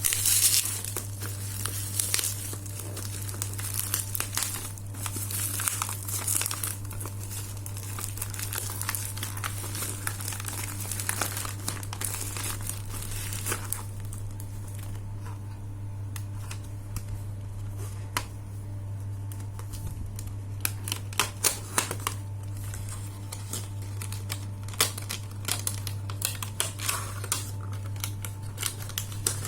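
Packaging crinkling and rustling as a boxed camera is handled and unwrapped. About halfway through it gives way to scattered clicks and light taps.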